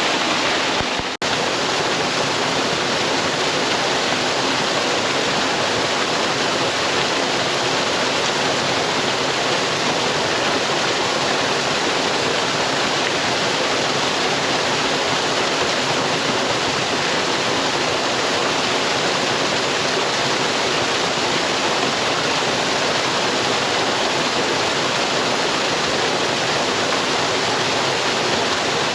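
Waterfall pouring into a pool: a steady, constant rush of water, broken by a momentary dropout about a second in.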